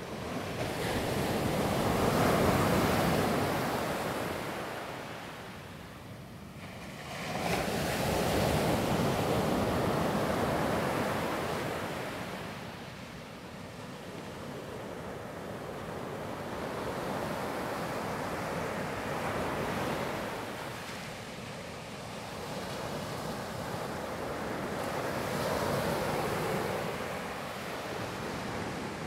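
Ocean surf breaking and washing up on a sandy beach, swelling and fading in waves, with the loudest swells about two seconds in and again around eight seconds.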